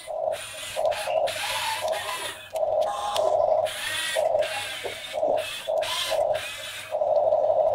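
HUINA remote-control toy excavator's small electric gear motors whirring in short stop-start bursts as the boom, arm and bucket move, with a longer run near the end.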